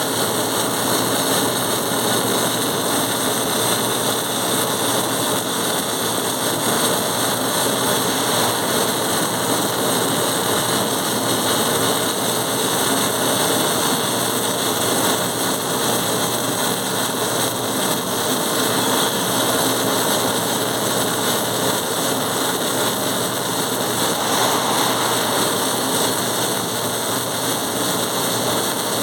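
Welding arc running continuously as a steady hiss with fine crackle, unbroken and even in level.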